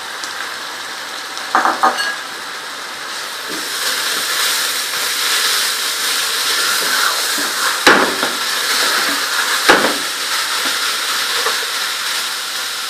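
Carrots frying with sugar, oil and raisins in a cooking pot, a steady sizzle that grows louder about three and a half seconds in as the mix is stirred. Two sharp knocks come partway through, a second or two apart.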